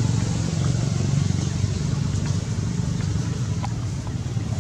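Steady low engine rumble of a running motor vehicle, with a few faint clicks.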